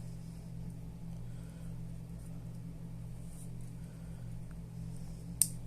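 Steady low background hum, with a single sharp click about five seconds in as the roller sear of the MP5 SEF trigger pack is pushed forward and seats into place.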